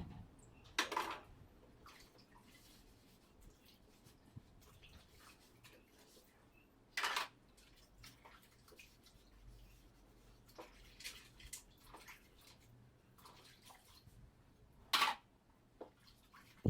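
Water splashed in three short bursts several seconds apart, with light knocks and drips in between.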